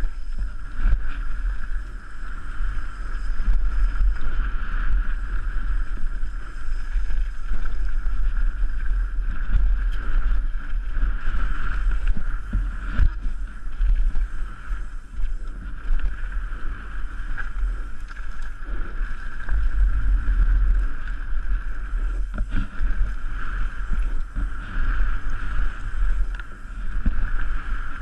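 Wind buffeting the microphone of a helmet-mounted GoPro as a downhill mountain bike rides fast over a gravel track, with the rumble of tyres on loose stones, frequent knocks and rattles from bumps, and a steady high buzz.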